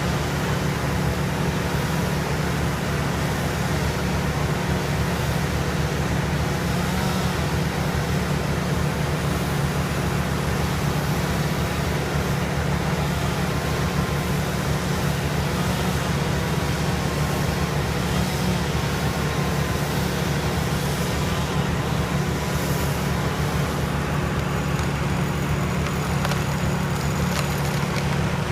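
Heavy equipment engine running steadily at a constant pitch: a low, unbroken drone that does not rev up or down.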